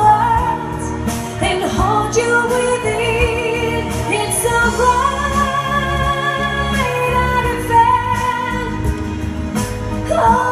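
A woman singing a pop song live into a microphone over backing music with a steady bass and drum beat, holding long notes in places.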